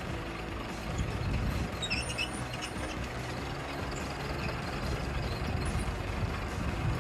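Tractor engine running steadily at idle, low and even. A few brief high chirps sound about two seconds in.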